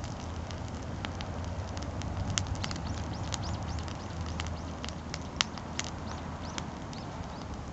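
Outdoor wood campfire crackling, with scattered sharp pops and snaps over a steady low rumble; the loudest pop comes about five and a half seconds in.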